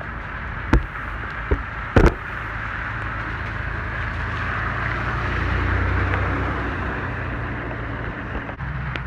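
Vintage car driving slowly past on a wet car park: a low engine rumble with tyres hissing through standing water, swelling to its loudest about six seconds in and then fading. A few sharp knocks in the first two seconds.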